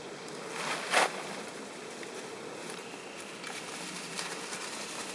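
Mountain bike tyres rolling and crackling over dry fallen leaves on a dirt trail, the crackling getting louder near the end as the bike comes closer. A brief loud rustle about a second in.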